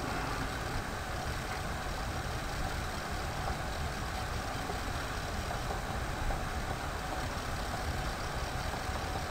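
Steady background room noise: a low, even hum with faint hiss and no distinct events.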